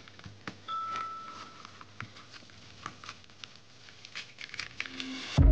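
Faint handling sounds of churro dough being pressed into a piping bag: scattered soft taps and rustles of the bag. Just before the end, music comes in with a loud struck note.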